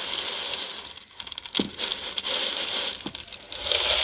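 Dry corn kernels pouring into the hopper of a Victoria hand-crank grain grinder: a steady rattling hiss of many small clicks, with a couple of sharper knocks.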